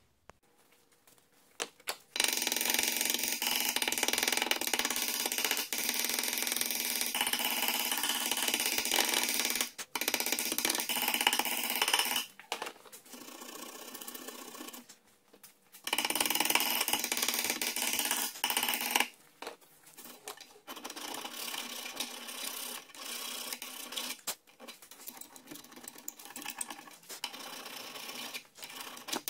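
Hand wire brush scrubbing rust off a steel brake caliper carrier clamped in a vise: long stretches of steady scratchy metal-on-metal noise, then quieter, broken scraping near the end as a pointed tool works the pad slots.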